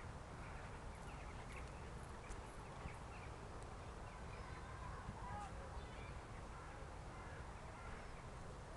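Faint outdoor ambience: a steady low rumble with a few short bird chirps scattered through.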